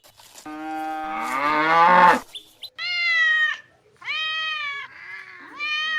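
A cow moos once, a long call rising in pitch, then a domestic cat meows three times in short arched calls.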